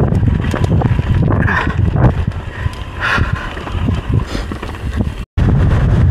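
Strong wind buffeting the microphone during a mountain bike ride, mixed with the knocking and rattling of the bike over rough dirt trail. The sound cuts out completely for an instant a little after five seconds in.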